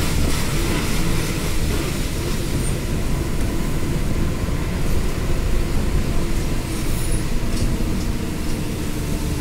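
Wind buffeting the phone's microphone: a steady low rumble that rises and falls slightly.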